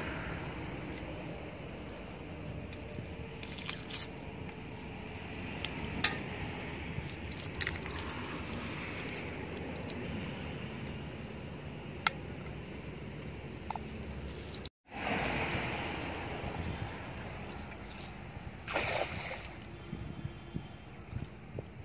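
A wet cast net rustling and shuffling on the ground as fish are shaken and picked out of it, with scattered small clicks and taps. After a short break about two-thirds of the way through, water sloshing around a wading man, with a brief splash near the end.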